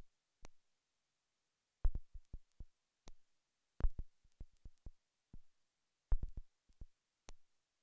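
Dull thumps and knocks on a fibreglass fishing boat, such as footsteps and bumps against the deck and gunwale, coming in clusters a second or two apart with near silence between.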